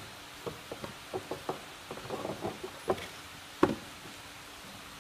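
Plastic knocks and taps from a car's air filter housing as the panel air filter is worked loose and pulled out from under the raised cover: a run of small irregular knocks, with one sharper knock about two-thirds of the way in.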